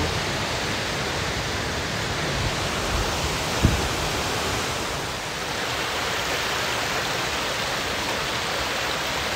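Mountain stream cascading over rocks in small waterfalls, a steady rushing, with one brief thump a few seconds in.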